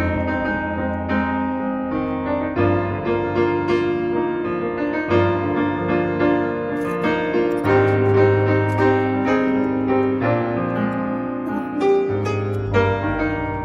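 Instrumental background music led by piano, with a bass note that changes every couple of seconds.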